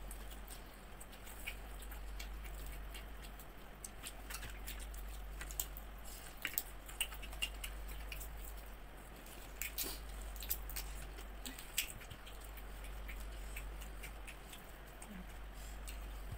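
Eating by hand: scattered small clicks and crackles from chewing and from fingers peeling cooked shrimp shells, mostly in the middle, over a steady low hum.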